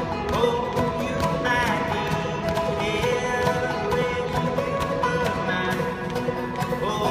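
Bluegrass-style string band playing: banjo, acoustic guitar and upright bass with a drum kit keeping the beat.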